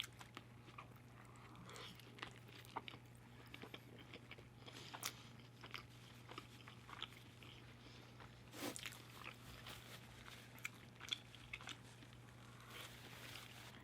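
Quiet close-up chewing and biting of food, with small mouth clicks and smacks scattered throughout and a denser cluster about two thirds of the way in. A steady low hum sits underneath.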